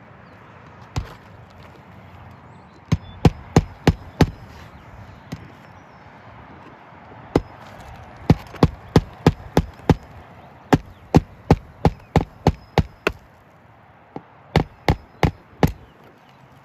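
Hammer blows, likely driving roofing nails: sharp strikes in quick runs of four to seven at about three a second, with short pauses between runs.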